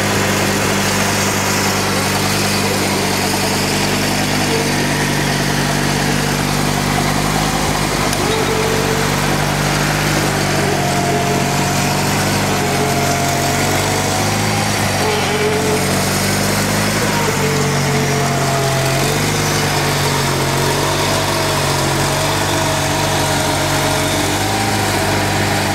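Craftsman snowblower's small engine running steadily while it throws snow, with a higher whine that wavers up and down in pitch from about eight seconds in.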